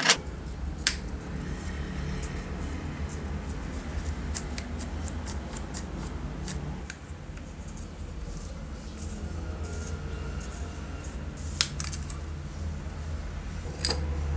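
Metal parts of a disassembled drill being handled and set down on a metal workbench: scattered small clicks and clinks, with a few sharper knocks about a second in and near the end. A steady low hum runs underneath.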